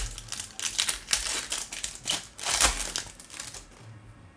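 Crinkling and rustling as trading card packs and cards are handled: a run of quick rustles that fades off about three and a half seconds in.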